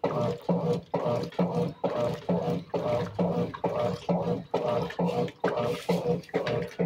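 Brastemp Mondial top-loading washing machine agitating: the motor hums in short, even pulses about two and a half times a second as the agitator swings back and forth, with water sloshing in the tub.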